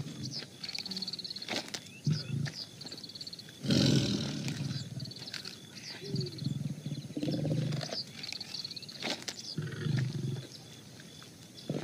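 A tiger growling in a series of low, rough growls, each lasting up to about a second, the loudest about four seconds in. High chirping runs on behind the growls.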